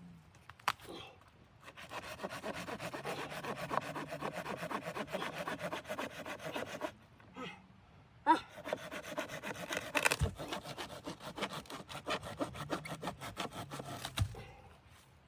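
Hand saw cutting wood in two long runs of quick, even strokes, with a break of about a second and a half in the middle.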